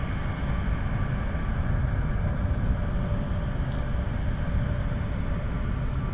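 Boeing C-17 Globemaster III's four Pratt & Whitney F117 turbofan engines running at low taxi power: a steady rumble with a faint, even whine over it.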